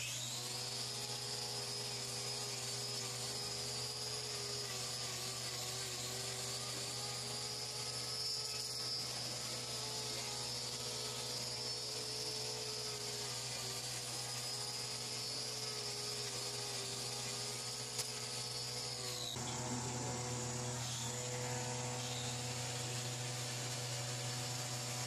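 Angle grinder with a hoof-trimming disc running against a cow's hoof, its whine wavering a little under load, then switching off about 19 seconds in. A steady low hum runs underneath throughout.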